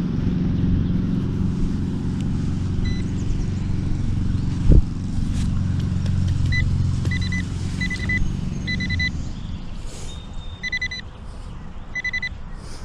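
A metal detector beeping in short, high, repeated bursts from about three seconds in, as it is worked over a soil plug to find the coin in it. Under it is a low, steady engine rumble that fades out about nine seconds in, and there is one sharp knock near the five-second mark.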